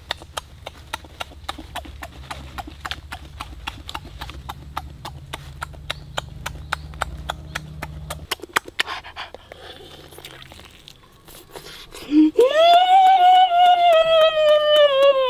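Chewing and lip-smacking, a fast run of wet smacks and clicks from someone eating a roasted chicken by hand, for about eight seconds. About twelve seconds in a loud, long high-pitched cry starts, held for several seconds and slowly falling in pitch.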